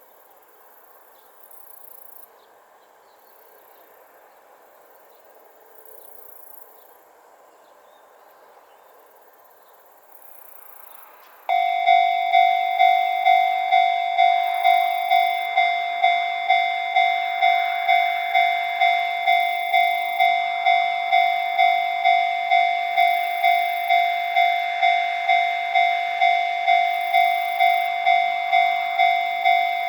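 Japanese level crossing's electronic warning bell switching on suddenly about eleven seconds in and ringing a steady, evenly spaced ding, about two a second, signalling an approaching train. Before it there is only faint background.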